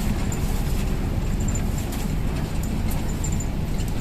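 Mercedes-Benz intercity bus under way: a steady low engine and road rumble, with a few faint high ticks.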